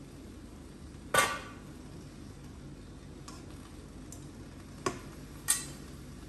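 A cooking utensil knocking and clinking against a frying pan while stir-frying, five or so separate strikes with a short ring, the loudest about a second in and two more near the end, over a steady low hum.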